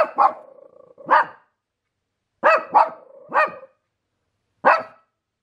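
Dog barking at moose in the yard: about seven barks, coming singly and in quick pairs and threes.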